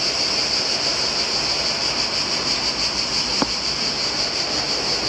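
Upholstery spot-cleaner's suction motor running steadily with a high whine, drawing air through the nozzle. A single small click about three and a half seconds in.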